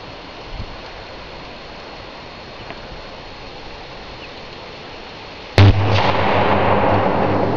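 Short circuit on a 132,000-volt power line: after a steady hiss, a sudden loud bang about five and a half seconds in as the line flashes over. A loud, sustained crackling electrical arc with a deep steady hum follows.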